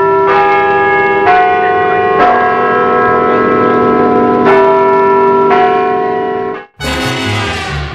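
Bells ringing, a different bell struck about once a second, five strokes in all, each ringing on under the next. The ringing cuts off suddenly near the end and music starts.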